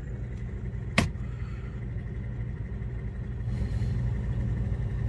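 Refrigerator compressor running with a steady low hum, heard from inside the fridge compartment, with one sharp click about a second in.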